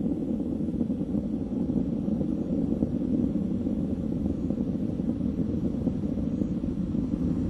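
Steady low rumble of a Delta II rocket in powered ascent, its main engine and six strap-on solid rocket motors burning.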